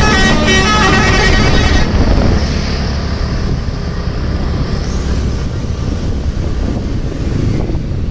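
A bus's telolet horn playing a quick tune of stepping notes, which stops about two seconds in, leaving engine and road noise.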